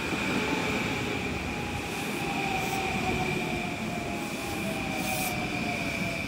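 Long Island Rail Road electric multiple-unit train running past close by: a steady wheel rumble, a whine that slowly falls in pitch, and a steady high squeal.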